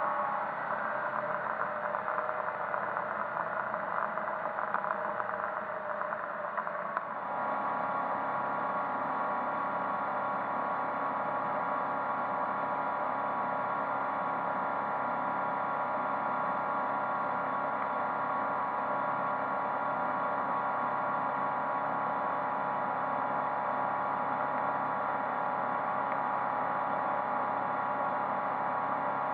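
MerCruiser 140 hp 3.0 L inline four-cylinder sterndrive engine running under way, heard from inside the boat's cab. The pitch sags slightly in the first seconds, then changes abruptly about seven seconds in to an even, steady drone.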